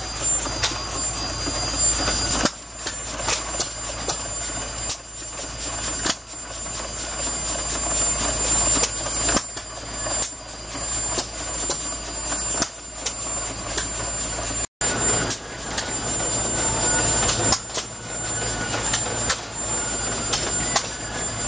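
Atlas stationary steam engine running, its valve gear and moving parts making a rapid, even clicking over a steady mechanical noise and a thin high hiss, with heavier knocks every few seconds.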